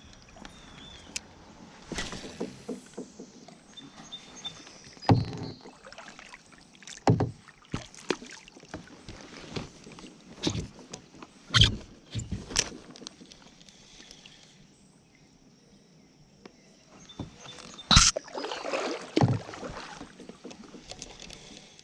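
Scattered knocks and bumps on a kayak's hull and gear, with some water movement, about a dozen sharp hits spread through, the loudest about five, twelve and eighteen seconds in.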